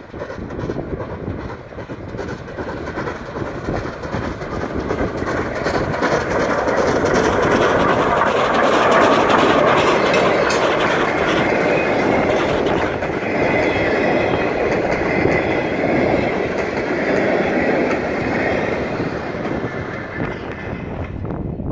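SJ steam locomotive and its train of passenger coaches passing close by. The rumble builds, is loudest as the locomotive goes past about nine seconds in, and stays strong while the coaches roll by, easing near the end.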